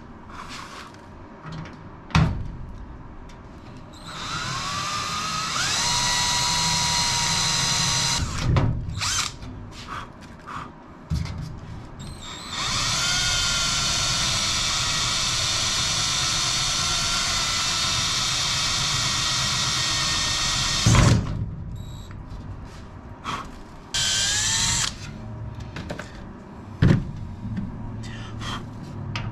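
Power drill drilling out rivets on an aircraft spar: three runs of a steady high whine, the first two several seconds long and rising in pitch as the drill spins up, the last brief, with sharp clicks and knocks between the runs.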